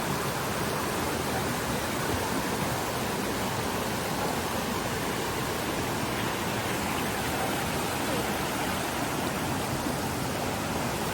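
Rushing water of a mountain stream swollen with rainwater, flowing and tumbling over rocks in a steady, unbroken rush.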